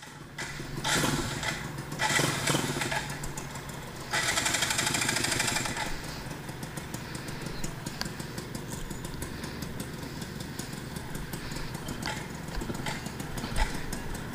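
Yamaha F1ZR two-stroke motorcycle engine running, with a few short revs in the first six seconds, then settling into a steady idle with a rapid, even beat.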